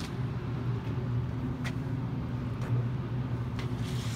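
An engine running at a steady idle, an even low hum, with a few faint clicks.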